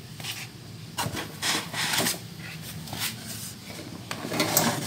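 Cardboard box being handled, with its flaps rubbing and scraping in irregular bursts as the welding machine is drawn out of it.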